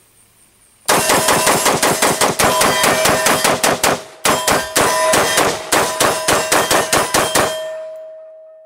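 Windham Weaponry MPC AR-15 carbine firing .223 in rapid semi-automatic fire, about five shots a second, in two strings with a brief pause about four seconds in. A ringing tone fades out after the last shot.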